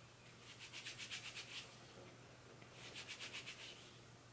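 Palms rubbing briskly back and forth over a two-strand-twisted starter loc, palm-rolling it: two faint bouts of quick rubbing strokes, about eight a second, each lasting about a second.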